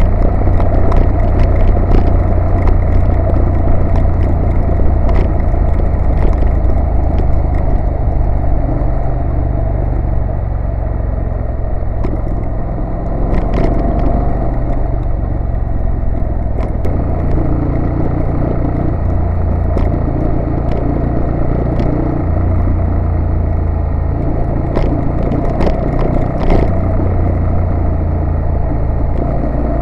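Honda NC750S motorcycle's parallel-twin engine running under way, its low note stepping up and down as speed changes, over heavy wind rumble on the microphone. Scattered short knocks.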